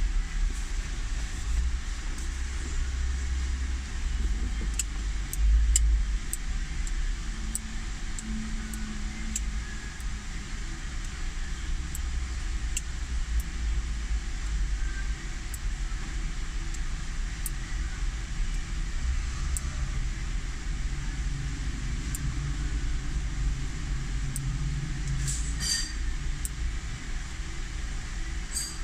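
Steady low rumble of background noise with a louder swell about five seconds in, and faint scattered ticks above it.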